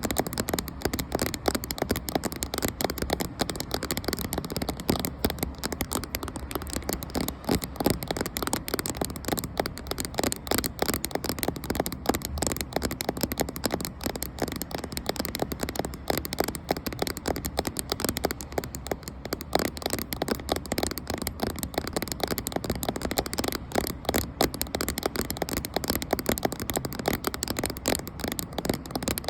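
Fast, continuous tapping on a camera, many light taps a second close to the microphone, with some scratchy scraping mixed in.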